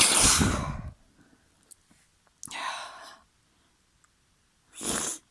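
A person's sneeze at the start, a loud noisy burst lasting about a second after the gasping build-up, followed by a breath out and then a short sharp sniff near the end.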